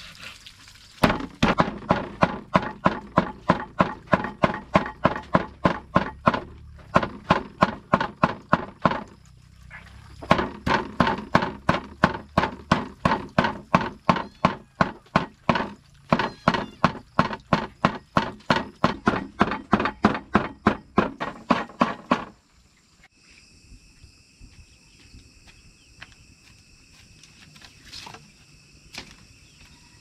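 Rapid, regular chopping strikes, about three a second, in runs of several seconds with short breaks. They stop about two-thirds of the way through, leaving a steady high-pitched hum.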